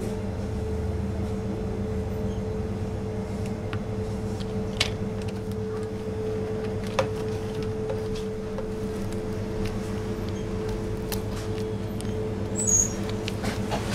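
Steady machine hum holding one even pitch, with two light clicks in the middle and a brief high squeak near the end.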